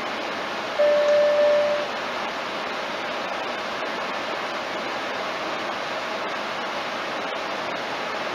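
Steady road and wind noise inside a car cruising at highway speed. About a second in, a single electronic beep sounds for about a second.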